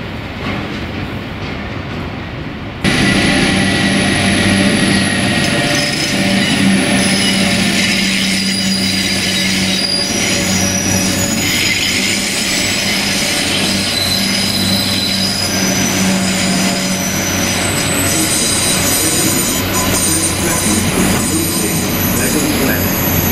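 A train moving on the rails with high-pitched metallic wheel squeal, over a low steady engine hum. The sound jumps suddenly louder about three seconds in.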